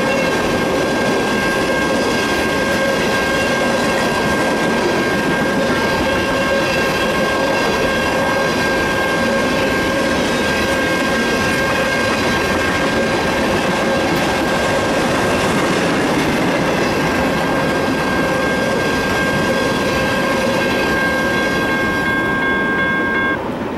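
Freight train of tank cars rolling past with steady wheel clatter over the rail joints. A grade-crossing bell rings on a steady tone over it and stops about a second before the end, once the last car has cleared the crossing.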